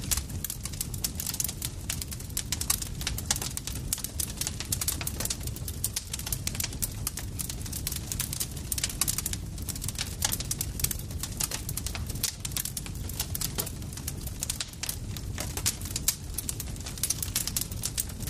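Campfire crackling: a dense, irregular stream of sharp pops and snaps over a steady low rumble of burning wood.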